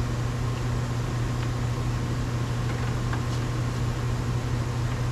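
Steady low machine hum, with a few faint small clicks of trim pieces being handled.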